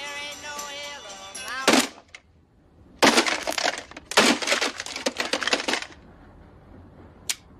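Music with singing cut off by a sharp crash about two seconds in as a flip clock radio is struck; a second later comes a run of hard smashing blows and clattering for about three seconds as the radio is beaten. A single click near the end.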